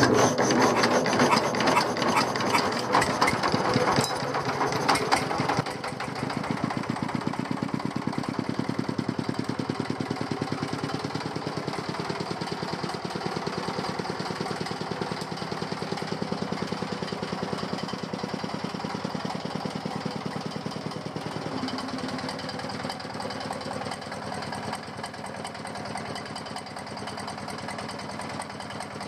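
Hand-cranked single-cylinder stationary diesel engine starting and running, belt-driving a feed grinder that is mincing fish mixed with rice bran. The first six seconds or so are loud and rough, then the engine settles into a steady, even beat.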